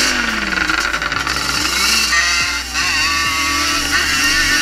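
Yamaha Banshee 350's two-stroke twin engine with Toomey T5 expansion-chamber pipes, revving up and down as the quad rides a rough trail, heard from a camera mounted on the quad. Its pitch drops at the start, then rises and falls several times.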